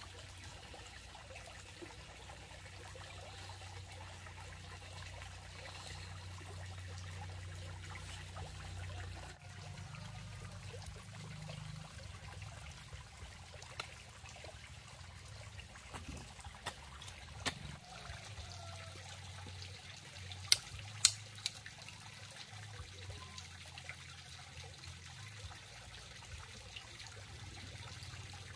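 Quiet trickling water, with two sharp clicks close together about twenty seconds in.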